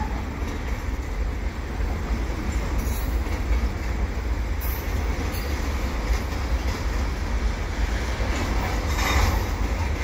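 Double-stack container train's well cars rolling past: a steady rumble of steel wheels on rail, with a few brief high-pitched squeaks.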